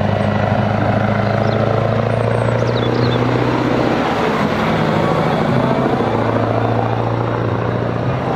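A road train's diesel truck engine runs at a steady drone as it pulls its tanker trailers past, close by about halfway through, with tyre and road noise.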